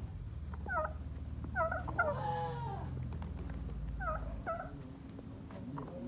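Farmyard animals calling: short, pitched cries in ones and twos, with a longer falling call about two seconds in, over a steady low rumble.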